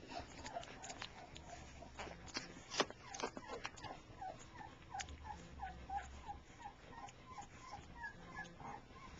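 Bullmastiff puppies whimpering and squeaking while they nurse: a quick string of short, high squeaks, about three a second in the second half, with scattered sharp clicks among them.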